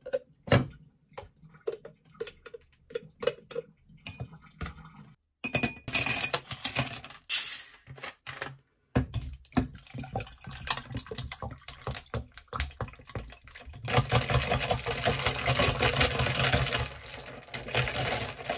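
A drink being made in a glass goblet: taps and clinks against the glass, ice cubes clattering in, then carbonated water poured over the ice with a steady fizzing hiss over the last few seconds.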